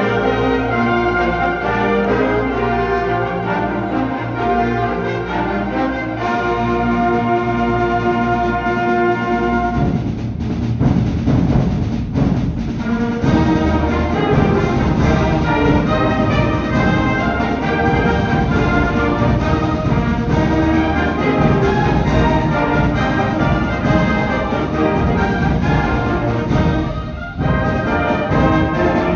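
High-school concert band of woodwinds, brass and percussion playing live. It opens with held chords; about ten seconds in, the percussion comes in with the full band on a steady driving rhythm. There is a brief break just before the end.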